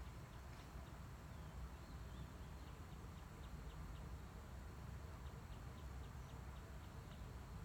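Faint outdoor background: a steady low rumble with a run of short, high ticks, about three or four a second.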